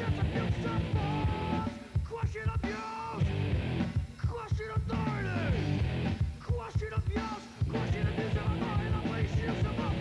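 Punk rock song with shouted vocals over drums and a band.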